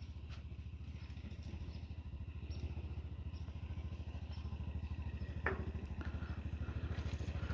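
A vehicle engine running at a steady idle with a fast, even low pulse, growing slightly louder, with one sharp clack about five and a half seconds in.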